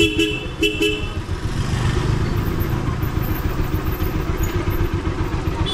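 Motorcycle engine running at low speed with a steady low pulsing, heard from the rider's seat. A horn gives two short beeps right at the start.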